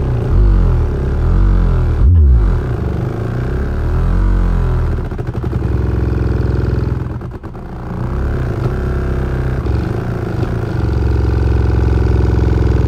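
Second-generation Kicker SoloX S12x 12-inch SPL subwoofer playing loud, deep bass in free air with no enclosure, its cone flapping on long excursions. The bass sweeps up and down in pitch for the first few seconds, then holds steadier, with a short dip about two seconds in and another past the middle.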